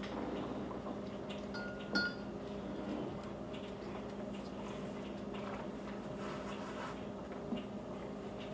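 Quiet room with a steady low hum and a single light clink about two seconds in, as a long drinking straw is set into a bottle on the table; otherwise only faint small handling ticks.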